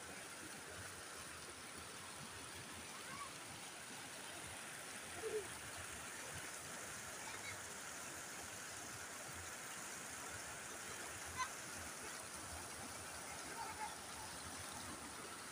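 Shallow water rushing over the steps of a low concrete weir and spillway: a steady rushing and splashing, with a few faint short chirps and a sharp click about eleven seconds in.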